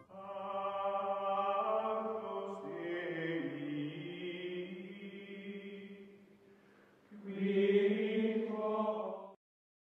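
Outro music of voices chanting in long held notes. A first phrase fades out at around six seconds, a second comes in at around seven, and it cuts off sharply a little after nine seconds.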